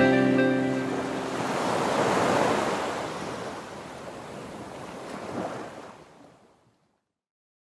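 As the background music ends, a soft surf-like noise swell rises for about two seconds and then fades away, gone about six seconds in.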